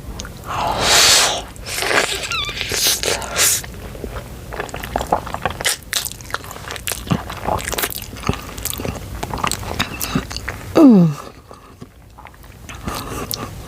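Close-miked slurping and chewing of a big mouthful of cheesy ramen noodles. A longer slurp comes about a second in and a shorter one around three seconds, followed by wet chewing with many small clicks. Near the end there is a brief vocal sound, falling in pitch and louder than the rest.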